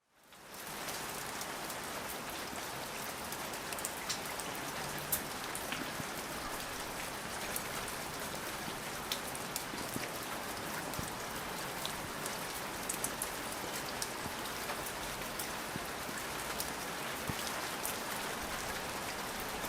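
Steady rain falling, a continuous hiss with many sharp individual drop hits scattered through it. It fades in over the first second.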